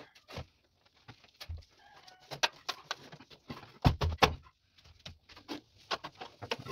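Scattered knocks, taps and scrapes of a PVC conduit pipe being handled against a metal breaker panel box and a concrete wall chase, with a cluster of heavier thumps about four seconds in.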